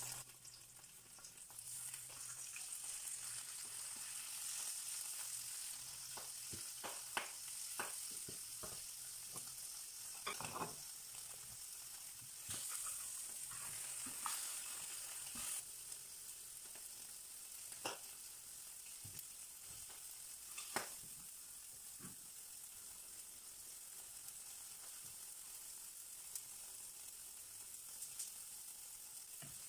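Egg frying in a frying pan, a steady sizzle, with a few short taps and scrapes of a spatula against the pan.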